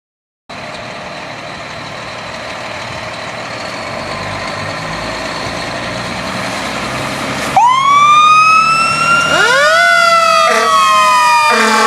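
Fire truck approaching, its engine and road noise growing steadily louder, until its siren cuts in loudly about seven and a half seconds in, its pitch sweeping up and down. Near the end a steady low horn blast joins the siren.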